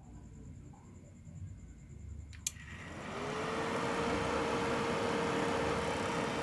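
Lakoni Falcon 120A inverter welding machine switched on: a sharp click of the power switch about two and a half seconds in, then its cooling fan spins up with a quickly rising whir and keeps running steadily.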